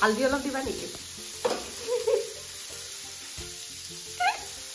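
Pork and vegetables sizzling as they are stir-fried in a frying pan, a steady hiss throughout, with a few short vocal sounds over it.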